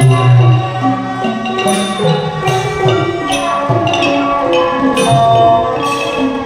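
Thai piphat mon ensemble playing a rapid, ringing melody on upright Mon gong circles (khong mon) and ranat xylophone, with a recurring low pitched note underneath.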